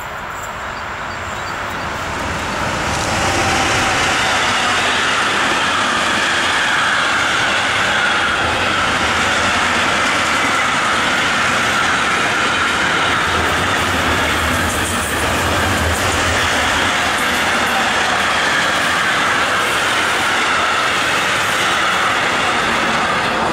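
Electric-hauled intermodal freight train, pocket wagons loaded with semi-trailers, passing close by: a loud steady rumble and rattle of steel wheels on the rails. It builds over the first three seconds as the locomotive arrives, then holds as the wagons roll past.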